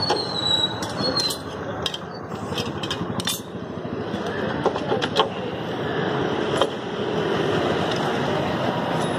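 The metal right-hand engine side cover of a Royal Enfield Standard 350 UCE being pulled and worked loose by hand, giving scattered sharp metallic clicks and knocks, over a steady rumbling background noise.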